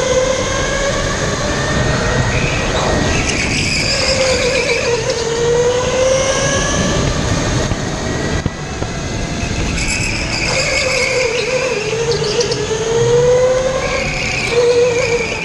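Go-kart motor whining as the kart is driven, its pitch sagging and climbing back up twice, over a steady rush of tyre and wind noise.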